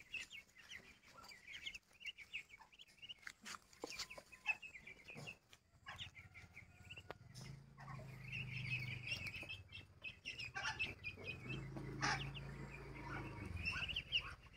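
A group of ducklings peeping, faintly, in quick high chirps that are thickest near the start and again through the second half. A low hum runs underneath for several seconds in the second half.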